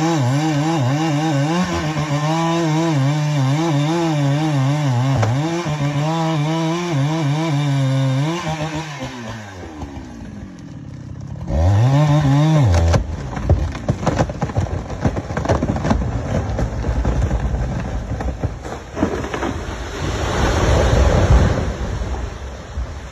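Chainsaw cutting through a big tree under load, its engine pitch wavering, then dropping away about nine seconds in, with one short rev shortly after. A long run of cracking, snapping and crashing follows as the big tree falls, loudest near the end.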